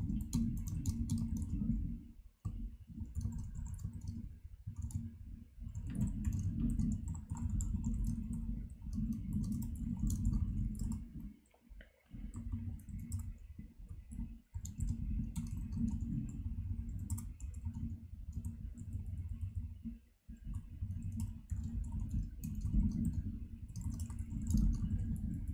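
Fast typing on a computer keyboard, a rapid stream of key clicks and thuds, broken by a few brief pauses.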